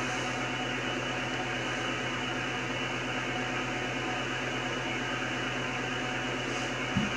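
Steady hiss of empty 2-metre band noise from an Icom IC-9700 transceiver's receiver audio, with a low hum underneath. No meteor burst comes through: the band is quiet.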